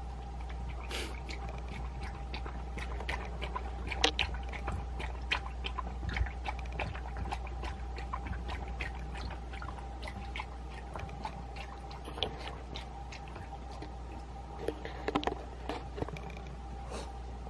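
A dog licking and lapping at a plastic bowl clipped to its pen, a run of irregular wet laps and clicks several times a second, with a steady faint hum underneath.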